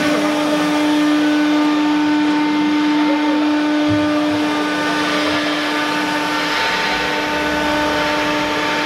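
CNC router spindle running at a constant speed, a steady whine with overtones over a hiss of machine noise.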